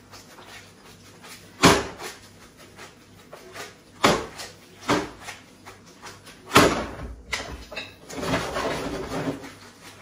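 A large metal frying pan knocking on the gas-hob grate several times, sharp clacks, as the pasta is tossed and stirred with the pecorino. Near the end comes a wet rustling of the pasta being stirred in the pan.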